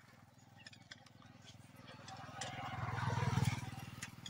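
A motor vehicle's engine passing by, its rumble swelling to a peak about three seconds in and then fading.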